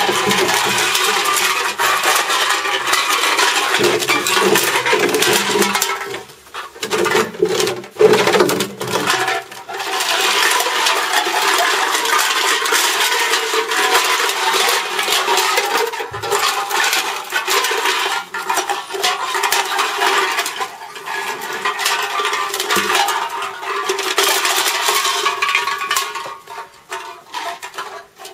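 Empty aluminium drink cans tied together, clattering and clinking against each other and scraping on paving stones in a continuous rattle. It breaks off briefly about six seconds in and goes quieter near the end.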